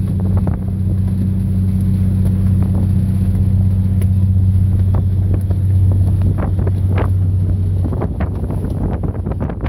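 A fishing boat's engine running steadily under way, a deep even hum, with wind buffeting the microphone; about eight seconds in the engine's hum drops off, as if the throttle is eased.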